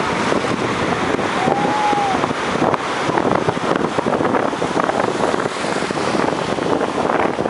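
Surf breaking and washing in at the water's edge, with wind buffeting the microphone and the voices of a large crowd mixed in. A short tone rises and falls about a second and a half in.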